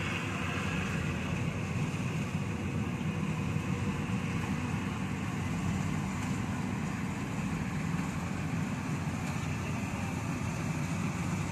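Rice combine harvester running steadily as it works through the ripe paddy: a constant low engine drone.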